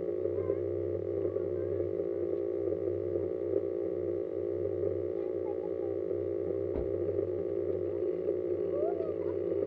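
Steady electric hum from the crashed multirotor lying on the ground, with a few faint high chirps over it and a brief click about seven seconds in.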